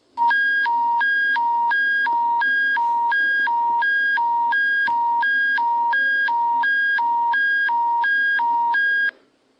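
Alberta Emergency Public Warning System alert tone: a loud two-tone signal switching evenly between a lower and a higher pitch, each held about a third of a second, cutting off suddenly about a second before the end. It is the attention signal that comes before an emergency bulletin.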